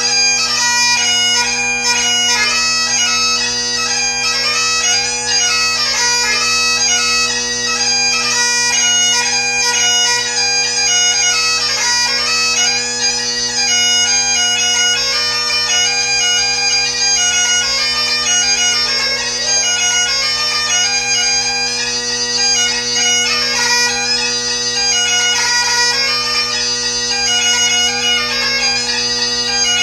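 Great Highland bagpipe played solo: the drones hold one steady low chord while the chanter plays a fast-moving melody above them.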